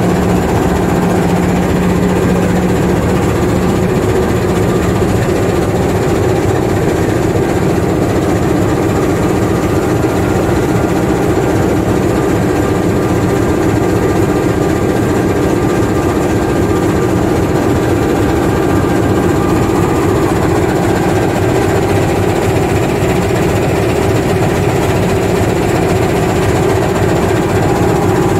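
A train's diesel engine idling, a steady loud hum; a low tone in it fades after about five seconds.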